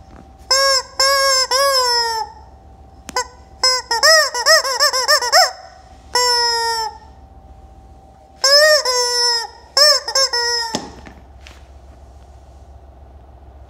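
Yellow rubber chicken squeeze toy squawking as it is squeezed over and over: three long squawks, then a run of quick short ones, another single squawk, and a final group whose last squawk cuts off sharply.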